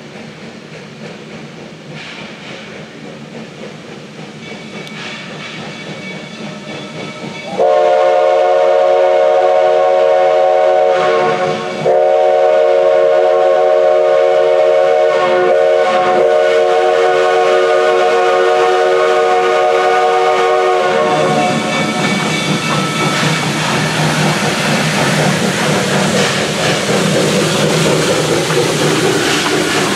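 Black Hills Central Railroad steam locomotive No. 110 approaching and growing louder, then sounding its steam whistle for the road crossing. The whistle is a chord of several notes, held in one long blast, then a brief break and a second, longer blast. After that comes the loud hiss and rumble of the locomotive passing close by.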